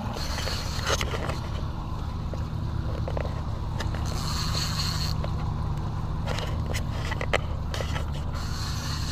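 150 hp outboard motor idling with a steady low drone, under passing patches of wind and water hiss and a few sharp knocks.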